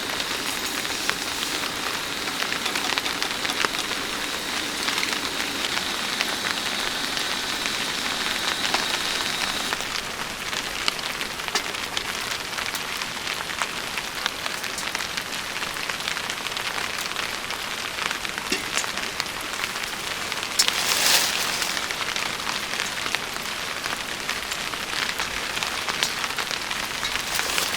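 Steady rain falling, with many individual drops ticking on a surface. A thin high steady tone sounds over it for the first ten seconds or so, and there is a brief louder rush about two-thirds of the way in.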